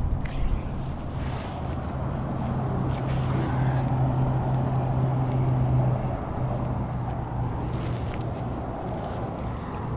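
A motor's steady low drone that swells to its loudest around the middle and then eases off, like an engine passing. Over it come a few light scuffs and knocks as a magnet-fishing rope is handled in gloved hands in a kayak.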